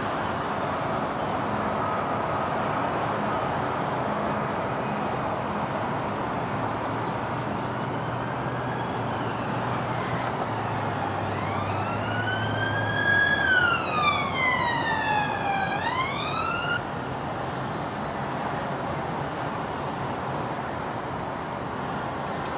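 Steady road traffic noise. About halfway through, an emergency vehicle siren wails for a few seconds, rising, then sweeping down and back up, before it is cut off abruptly.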